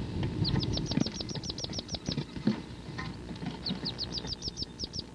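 Wood duck ducklings peeping inside the nest box in two quick runs of high, downward-slurred peeps, about eight a second, with scrabbling and soft knocks as they move about the box.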